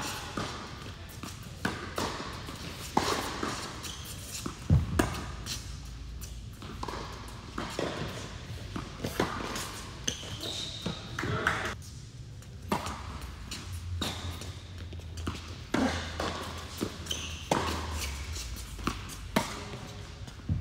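Tennis rally: racket strikes on the ball and ball bounces on an indoor hard court, sharp knocks every second or so that ring out in the large hall.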